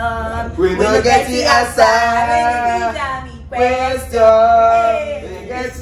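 Voices singing a song together without accompaniment, with long held notes in two phrases and a brief break about three and a half seconds in.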